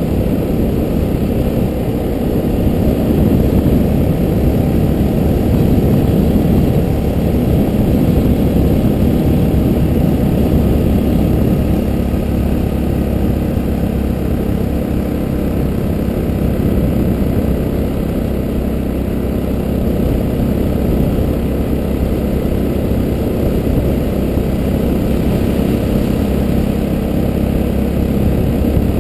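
Yamaha Ténéré motorcycle riding along at road speed: its engine running steadily under a heavy rumble of wind noise on the bike-mounted camera.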